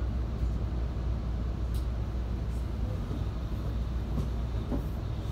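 Steady low rumble heard inside a commuter train car, with one brief sharp click a little under two seconds in.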